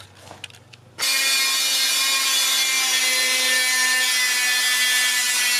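Small corded rotary tool switched on about a second in, its high whine steady as it cuts through a car fender along a line of tape.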